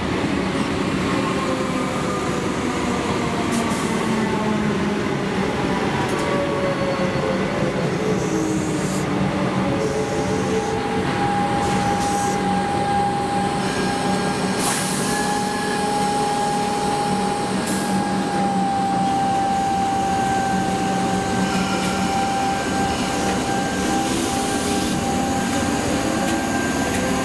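Comeng electric suburban train pulling away from the platform: a steady rumble of wheels on rail with whining tones that glide down, then a high steady whine through the middle. Near the end another Comeng train's motor tones come in, rising in pitch.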